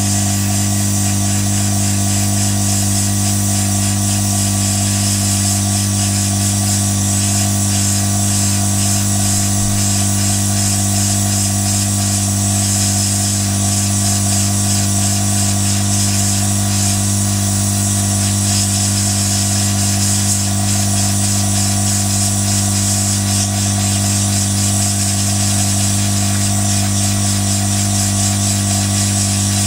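Hot air rework gun blowing steadily onto a surface-mount chip to reflow its solder: an even hiss of air over a steady low hum.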